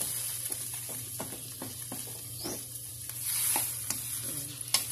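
Wooden spatula stirring chicken adobo in an aluminium wok, clicking and knocking against the pan many times over the steady sizzle of the sauce.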